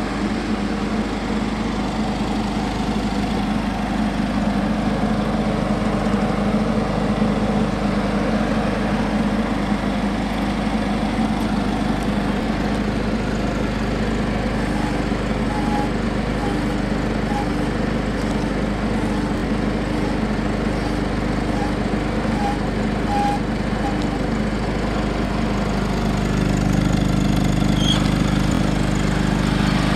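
John Deere 425 garden tractor's 20 hp liquid-cooled overhead-valve V-twin engine running steadily, growing somewhat louder near the end.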